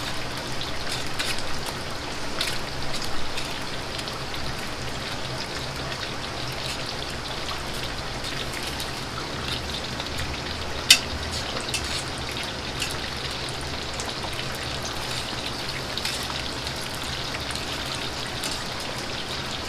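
Starch-coated liver pieces deep-frying in hot oil in a wok: a steady crackling sizzle, with a low steady hum beneath. One sharp click about eleven seconds in.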